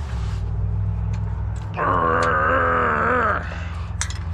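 Impact wrench with a 5/8 socket hammering on a trailer bolt for about a second and a half, a dense buzzing drone that starts about two seconds in and stops abruptly, zipping the bolt loose.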